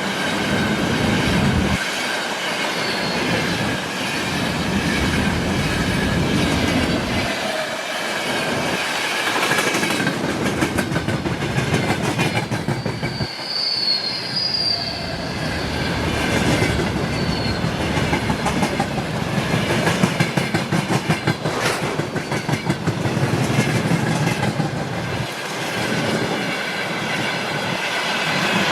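Long freight train rolling past, its wagon wheels clattering over the rail joints in a steady rhythm, with a brief high wheel squeal about halfway through.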